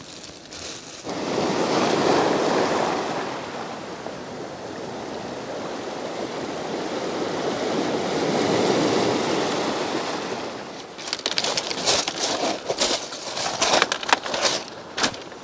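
Small waves breaking and washing over a pebble beach, swelling twice about six seconds apart. After that, a run of sharp clattering crunches of pebbles.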